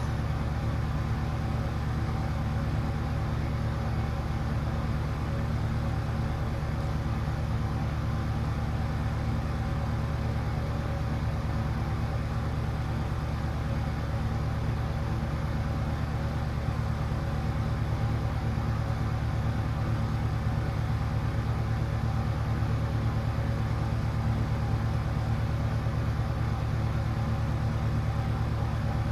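Steady low hum with a few steady buzzing tones above it, unchanging throughout.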